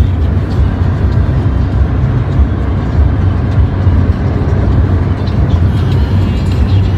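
Steady low road and engine rumble inside the cabin of a car moving at speed.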